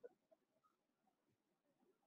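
Near silence: a pause in a video call.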